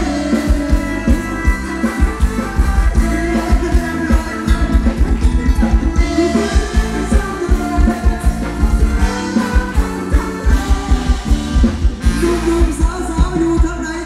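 Live Thai ramwong dance band playing, with a singer over a steady drum beat.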